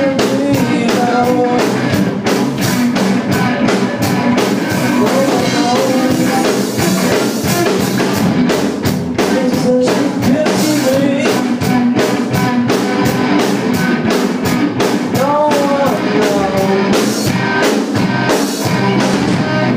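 Live rock band playing: a male singer over electric guitars and a drum kit, with steady drum beats throughout.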